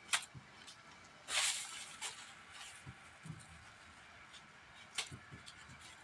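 Quiet rustling of stinging nettle leaves being handled and sorted by gloved hands, with a brief louder swish about a second and a half in and a few faint taps and clicks.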